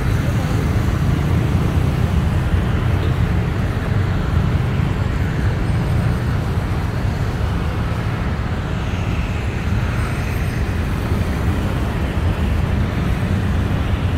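Steady city road traffic: a continuous low rumble of passing vehicles with no breaks.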